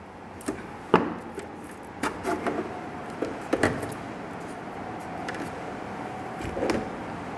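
Sharp plastic clicks and knocks, several of them spread apart, as a truck side mirror's glass and its plastic holder are pried up off the mirror actuator and handled.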